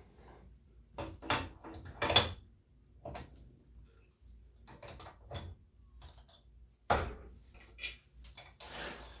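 Metal clanks and clinks as a drill chuck and tools are handled and fitted at a drill press spindle: several separate knocks, the loudest about two seconds in and again about seven seconds in, with a short scraping rustle near the end.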